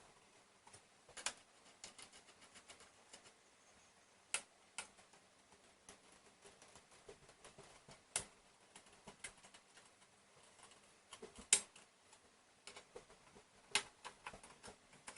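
Faint, scattered light clicks and ticks of a flathead screwdriver and small metal screws on a graphics-card heatsink, the screws being tightened a little at a time in turn; a few sharper clicks stand out.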